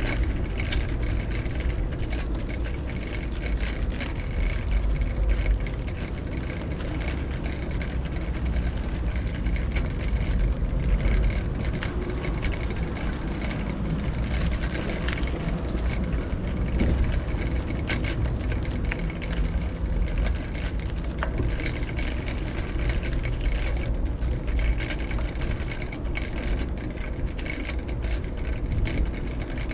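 Street noise heard from a moving bicycle: a steady low rumble of riding and passing traffic, swelling and easing with no clear single event.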